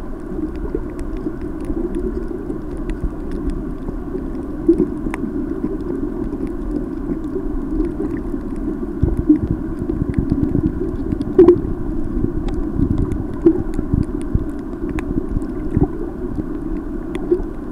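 Muffled underwater ambience picked up by a camera in its housing: a steady low rumble and wash of water, dotted with faint scattered clicks.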